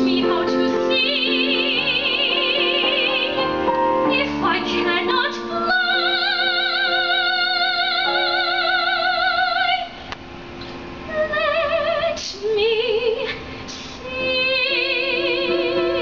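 A woman singing a musical-theatre ballad live in a trained soprano voice with wide vibrato, holding long notes. About ten seconds in she drops quieter for a few short phrases, then swells back into a held note near the end.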